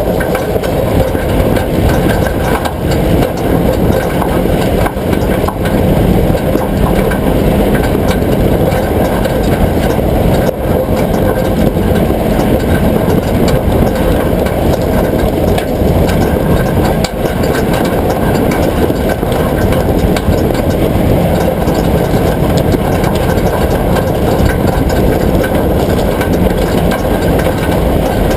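Vehicle running, a steady loud drone of engine and mechanical noise with faint steady tones and no distinct knocks.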